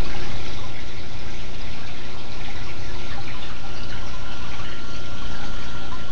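Aquarium water circulating steadily: trickling, bubbling water over a low, steady hum, with a thin high tone running through it.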